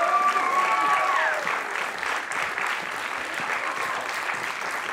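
Audience applauding, with a few cheers rising above the clapping in the first second or so.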